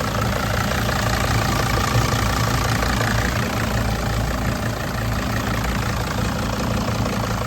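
Mercedes-Benz 2.7 litre five-cylinder turbo diesel in a 2006 Dodge Sprinter, idling steadily under an open hood.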